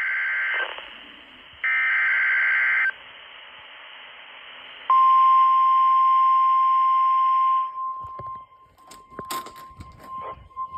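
Emergency Alert System broadcast from a weather radio. It opens with two harsh, buzzy SAME header data bursts, each a little over a second long. After a pause of radio hiss comes the steady 1050 Hz weather radio warning alarm tone, which drops to a faint level after about three seconds, with scattered clicks.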